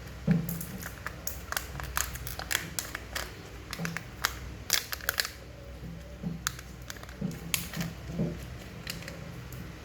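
Kinder Joy packaging being opened by hand: plastic crinkling and crackling in quick, irregular bursts, with a few soft knocks.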